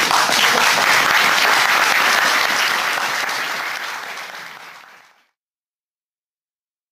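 Audience applauding, starting loud and dying away to nothing about five seconds in.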